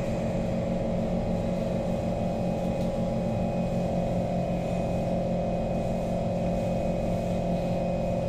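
Steady hum inside a Kawasaki Heavy Industries C151 metro car, several constant tones over a low rumble that neither rise nor fall in pitch. This is the sound of the car's onboard equipment while the train stands still with its doors closed.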